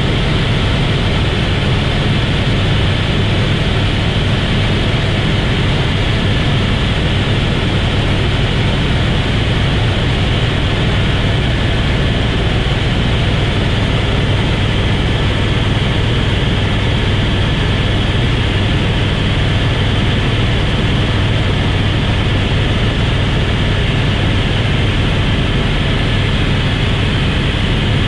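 Helicopter in flight heard from inside the cabin: its rotor and turbine engine make a loud, steady drone, heaviest in a low rumble, with a faint thin whine above it.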